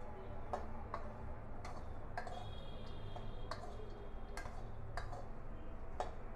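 Metal spoon clicking and scraping against a metal kadhai while stirring puffed fox nuts (makhana) as they roast on a low flame. The clicks come irregularly, about once a second, over a low steady hum.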